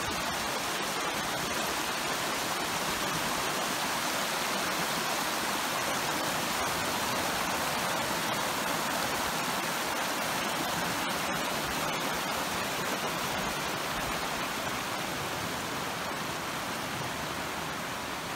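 Rushing water: a fast, rocky stream running steadily over stones.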